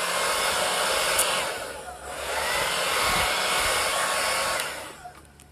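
Handheld hair dryer blowing, warming a beeswax foundation sheet to soften it for rolling. Its steady rush dips briefly about two seconds in and fades out near the end.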